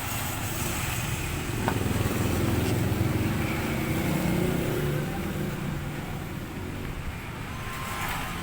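A motor vehicle's engine running nearby, a low rumble that grows louder about two seconds in and fades again after about five seconds, as a vehicle passing by would.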